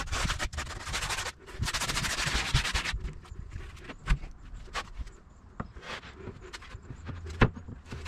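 A large plywood sheet being carried and handled. The board rubs and scrapes for the first three seconds, then come footsteps and scattered knocks, with a sharp knock near the end as it is set down on the aluminium subframe.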